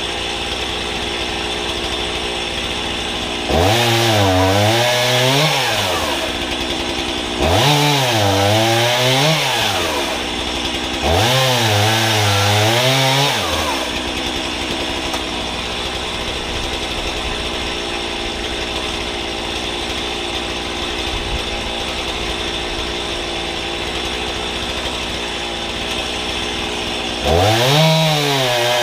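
Gas chainsaw on a homemade guillotine frame, idling and then revved through three firewood cuts a few seconds apart. In each cut the engine note climbs, sags as the chain loads up in the log, then rises again as it cuts through. After about thirteen seconds of idling, another cut starts near the end.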